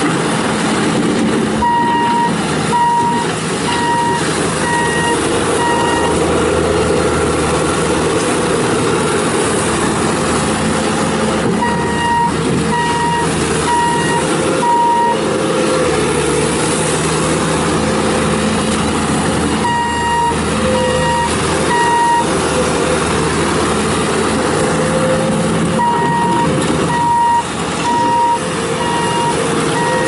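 Bobcat T650 rubber-track skid steer's Kubota diesel running as the machine drives and turns on gravel, with its backup alarm beeping about once a second in four runs of three to five beeps as it reverses.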